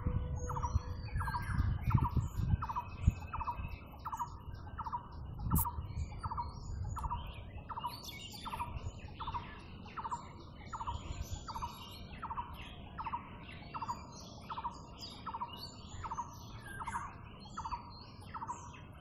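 Birds calling: one bird repeats a short note evenly about one and a half times a second, while other birds chirp higher and more irregularly. Low rumbling noise with a few thumps is loudest in the first few seconds, then dies down.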